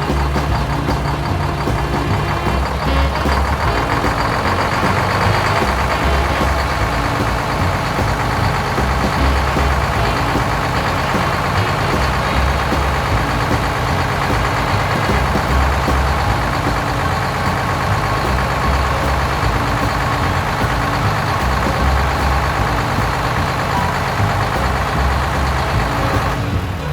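A heavy vehicle's engine running steadily, with a pulsing low rumble. It breaks off briefly near the end and then carries on.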